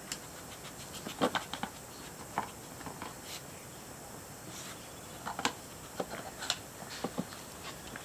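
Scattered light clicks and knocks of the plastic parts of a Trixie Poker Box 2 dog puzzle as a small dog noses and nudges its compartments, a few close together about a second in and more between about five and seven seconds.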